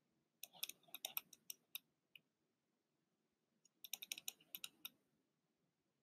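Faint, sharp clicks of a stylus tapping on a tablet screen during handwriting, in two quick runs: one about half a second in, the other around four seconds in.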